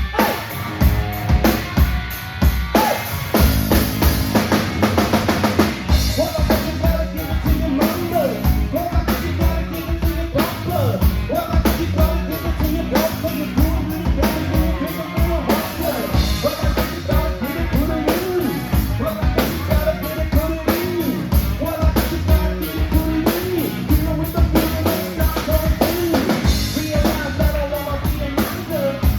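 Live rock band playing an instrumental passage, led by a steady drum-kit beat with bass drum and snare. A bending, wavering lead melody comes in about six seconds in.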